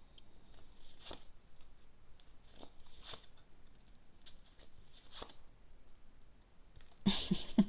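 Faint scattered clicks and soft rustling of tarot cards being handled on a table, about five separate light clicks over several seconds.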